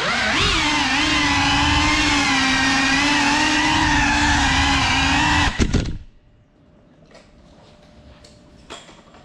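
Small indoor FPV quadcopter's brushless motors and propellers whining in flight, the pitch wavering slightly with the throttle. A few knocks come about five and a half seconds in as it sets down, and the motors cut out at about six seconds.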